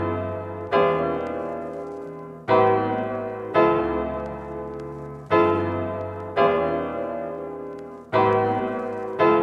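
Background music: piano chords struck about every one to two seconds, each ringing and fading before the next.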